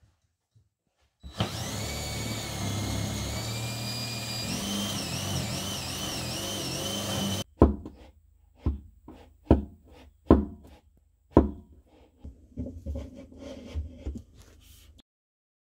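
Power drill running for about six seconds, boring a hole through the wooden floor of a sink cabinet, its motor whine shifting and wavering partway through. Then about five sharp knocks roughly a second apart, followed by lighter clattering.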